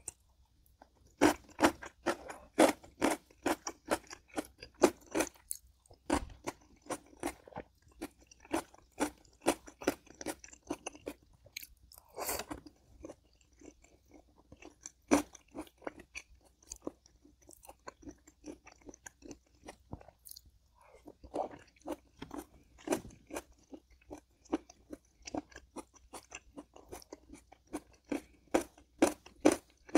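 A person chewing and crunching food in a steady run of quick bites, with a couple of short pauses.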